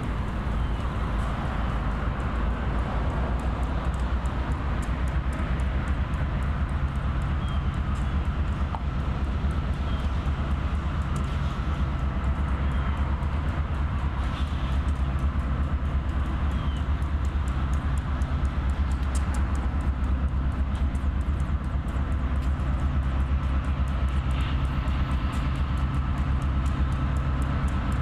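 Diesel-electric switching locomotives, a GE B39-8E and an EMD GP38, running with a steady deep engine drone while working the yard.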